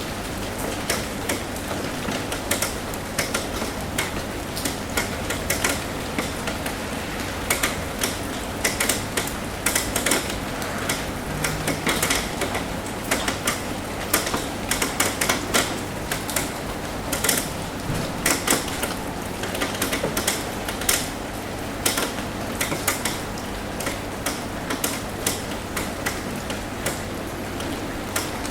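Rain on a roof: a steady hiss of rainfall with many sharp, irregular taps of drops striking the roof, coming in uneven clusters.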